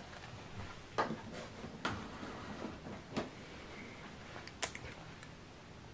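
Quiet room tone with four faint, sharp clicks spaced about a second apart.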